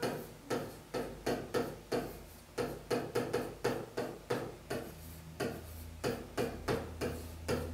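A pen tapping and scraping on a touchscreen display as capital letters are handwritten: a run of short, sharp clicks at about three a second, unevenly spaced.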